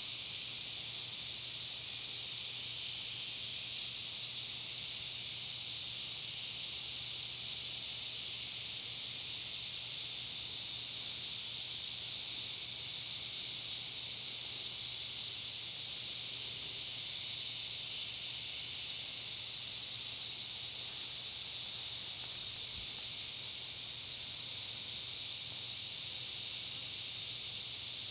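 A steady, even hiss that does not change, with a faint low hum underneath.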